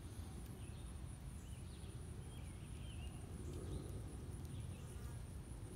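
Faint outdoor ambience: a steady high-pitched insect drone and a few faint wavering bird chirps, about one and a half and three seconds in, over a low rumble on the microphone.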